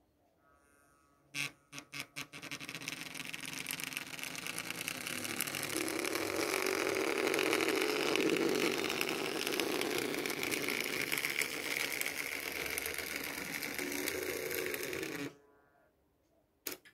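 Märklin model diesel locomotive running along metal track: a few clicks as it starts off, then the steady whir of its electric motor and gears with wheels rattling over the rails, loudest as it passes close by. The sound cuts off suddenly, and one more click follows near the end.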